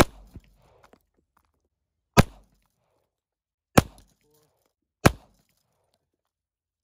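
Four single pistol shots from a Rock Island Armory full-size 1911 chambered in .45 ACP. The gaps between shots shorten from about two seconds to just over one.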